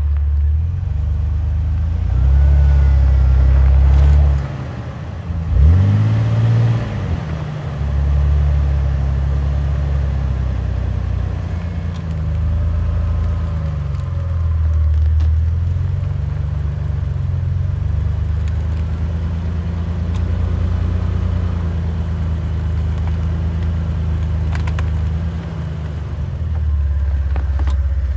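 Jeep Wrangler engine running at low revs as it crawls over a log on a dirt trail, with one brief rev up and back down about six seconds in.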